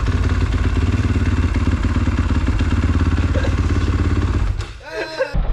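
Dirt bike engine running steadily on the stand, then cutting out abruptly about four and a half seconds in as the newly fitted kill-switch lanyard shuts it off.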